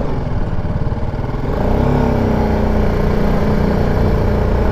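BMW G310 GS single-cylinder motorcycle engine heard from on the bike at low speed, revving up about a second and a half in and then holding a steady pitch.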